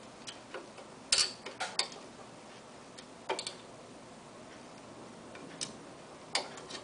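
Light, irregular clicks and taps of small metal parts being handled as a pin is fitted to the end of an envelope sealer's water tray. The sharpest click comes about a second in, with a few more spread through the rest.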